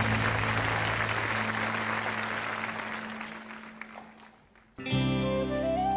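Studio audience applauding over a low steady tone, the clapping dying away over about four seconds; about five seconds in, music with held notes starts abruptly.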